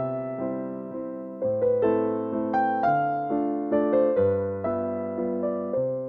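Background piano music: single notes and chords struck one after another, each fading away before the next.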